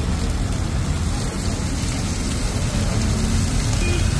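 Fish frying on a hot griddle, a steady sizzling hiss, over a low rumble of road traffic.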